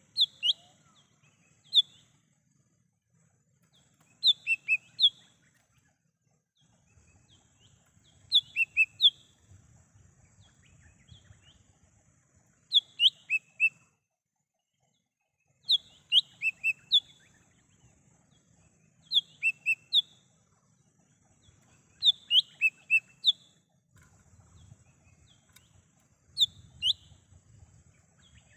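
Cucak hijau mini, a small green leafbird, calling in short phrases of three or four sharp, quick notes, repeated every three to four seconds.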